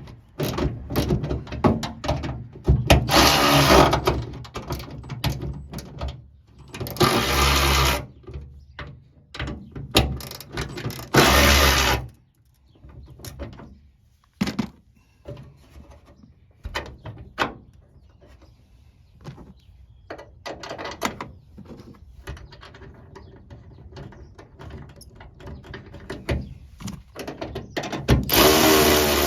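Ratchet wrench tightening hood-strut mounting nuts: runs of ratchet clicking, with several short loud bursts in the first twelve seconds, then quieter scattered clicks and tool handling.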